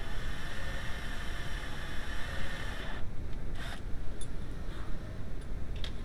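Cordless drill running, drilling out a jammed ignition lock cylinder on a VW Passat B4. The drill stops about three seconds in, followed by a few short clicks and scrapes of metal parts being handled.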